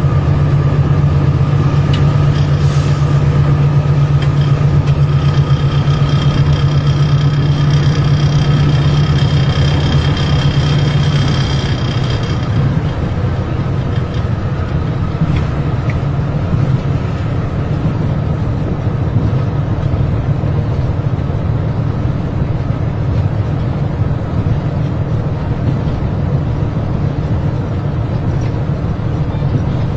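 Train running on the rails, heard from the locomotive cab, with a steady low drone. A faint high whine rides over it from about 5 s to about 12 s, when the drone eases into a rougher running rumble.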